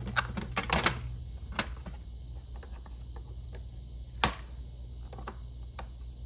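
Small push-on retaining clips being pried off the back of an emblem with a screwdriver: irregular sharp clicks and snaps, a cluster just under a second in and a single loud one a little past four seconds.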